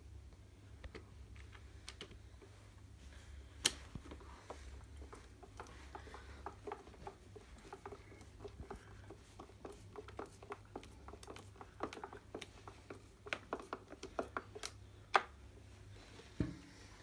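Scattered small clicks, ticks and taps of hands working on small parts and tools during a switch and potentiometer repair on a golf trolley handle, over a low steady hum. A dull thump comes near the end.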